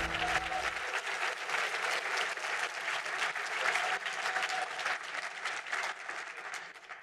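Audience applause, a dense patter of clapping that thins out near the end. A low sustained tone stops about a second in.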